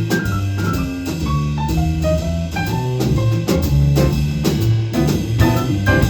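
Jazz combo playing instrumentally: a melodic line of short notes stepping downward over bass notes, with drum kit and piano.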